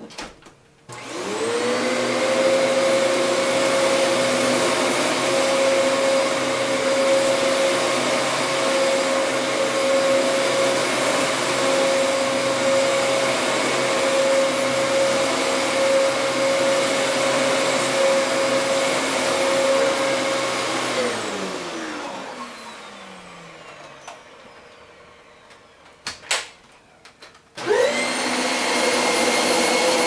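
Dyson upright vacuum cleaner switched on with a click, its motor spinning up to a steady whine and running for about twenty seconds, then switched off and winding down with a falling pitch. After a couple of clicks, a second Dyson upright, the orange Dyson Ball, starts up near the end with a rising whine.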